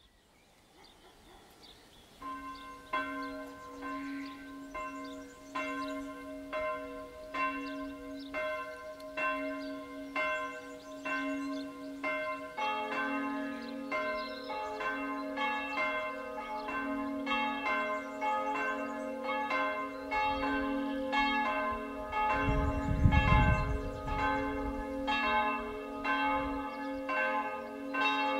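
The two historic church bells of Tauchritz village church swinging in a full peal. One bell starts striking regularly, and about twelve seconds in a second, lower bell joins, the two ringing together. A brief low rumble comes about twenty-three seconds in.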